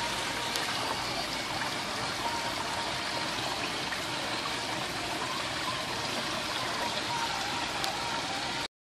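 Water running steadily into a shallow shark pool, an even trickling splash that cuts off suddenly near the end.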